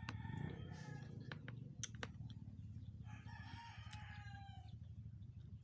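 Rooster crowing: a long crow about three seconds in, ending on a falling pitch, with a shorter one at the start, over a steady low rumble and a few sharp clicks.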